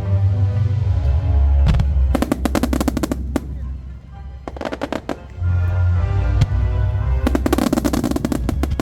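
Fireworks set to a bass-heavy music soundtrack, with two rapid volleys of sharp firework cracks and bursts, about two seconds in and again near the end.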